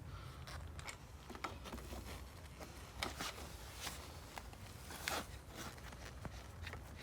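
Hands handling parts or packaging: scattered light clicks and a few short rasping scrapes, over a steady low rumble.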